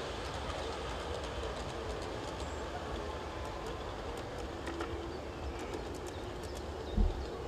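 Ride-on model railway train rolling along the track: a steady rumble with faint scattered clicks. A short low thump comes near the end.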